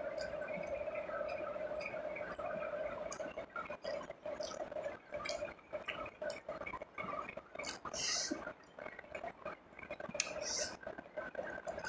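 Close-miked eating sounds: lip smacks, chewing and many small wet clicks as fingers pick at fried rice and grilled eel, over a steady background hum.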